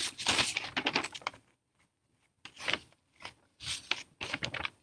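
Sheets of paper being handled and held up, rustling and crackling in short bursts: a dense run in the first second or so, then a few shorter bursts with quiet gaps between.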